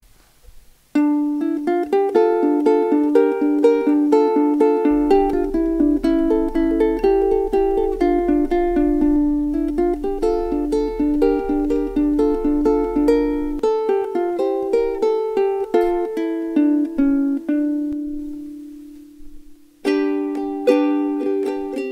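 Noah monkey pod soprano ukulele playing a melody of quick plucked notes, starting about a second in. The tune slows into one long ringing note that fades, and a new passage starts near the end.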